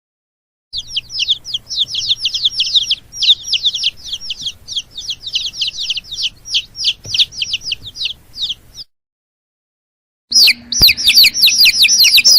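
Birds chirping: a fast string of short, high-pitched, downward-sweeping chirps for about eight seconds, a break of over a second, then a second, denser run of chirps.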